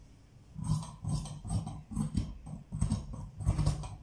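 Large tailor's scissors cutting through cotton fabric on a table: a run of short snips, about two a second, each with a crunch of the blades and a light knock of the lower blade on the tabletop.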